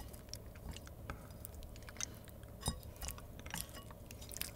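Scattered light clicks and taps of chopsticks against a bowl as food is picked through, with quiet chewing.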